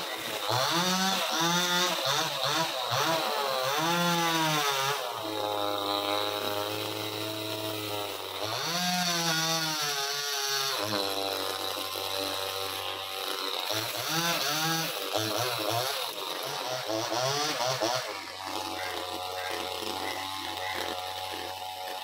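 Chainsaw revving up and down in several bursts, settling back to a steady idle between them, about three times.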